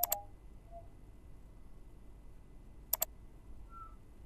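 Two computer mouse clicks about three seconds apart, each a quick pair of ticks, over a faint steady hiss.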